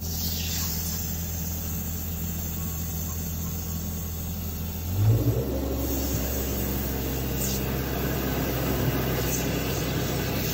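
High-pressure drain jetter's engine running with a steady low hum. About five seconds in there is a knock, after which rushing water joins the hum.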